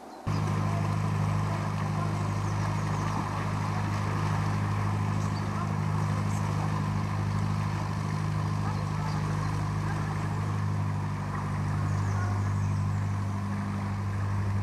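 Narrowboat's diesel engine running steadily at low revs while the boat moves slowly ahead, cutting in suddenly just after the start.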